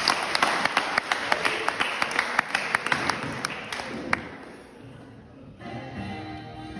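Audience clapping, thinning to a few scattered claps that die away about four seconds in. About a second before the end, music starts.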